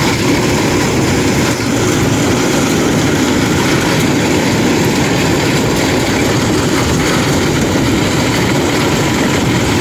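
Kubota DC93 rice combine harvester running steadily under load as it cuts ripe rice, its engine and machinery making a loud, even drone.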